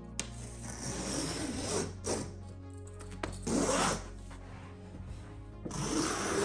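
Carpet knife slicing through carpet backing along a metal straightedge, cutting a seam edge: one long scratchy stroke, then several shorter ones.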